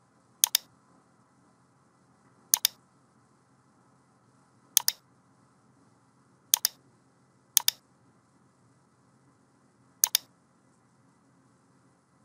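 Computer mouse button clicked six times, one to two and a half seconds apart, each click a quick double tick of press and release.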